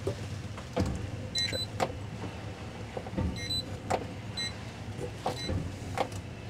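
Boat engine idling low and steady during slow docking, with several sharp knocks and three brief groups of short high-pitched beeps.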